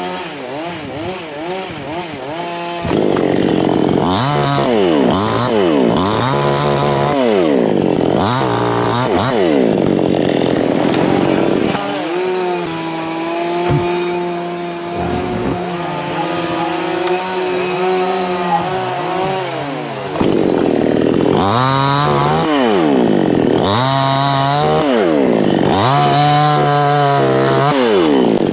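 Two-stroke chainsaw revving up and down over and over, held at a steady speed for several seconds from about twelve seconds in, then revving up and down again.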